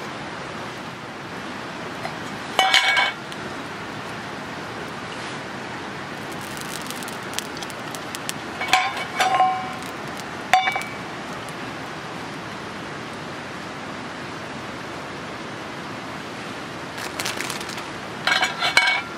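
Black metal frying pans with folding wire handles clinking and ringing against each other as they are handled, in short clusters about three seconds in, around nine to eleven seconds, and near the end, over a steady background hiss.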